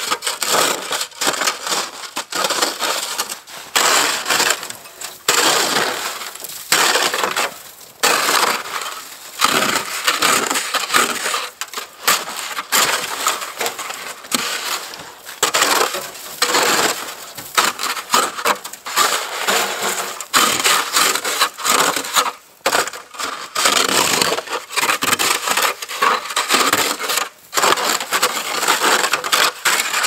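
Snow shovel digging into and scraping packed snow, an irregular run of crunches and scrapes as heavy snow is cleared off a vehicle's roof and hood.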